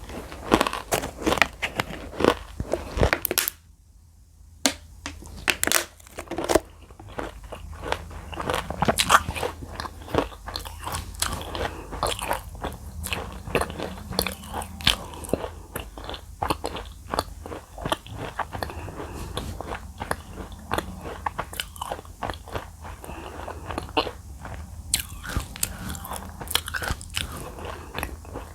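Close-miked biting and chewing of dry Nakumatt edible clay: a dense run of sharp crunches and crackles, with a short pause about four seconds in before the chewing resumes.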